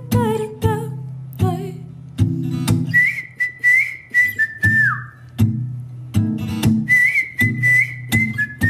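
Acoustic guitar strummed in a steady rhythm, with a sung note fading out in the first second. Over the guitar comes a whistled melody in two phrases, the first ending in a downward slide.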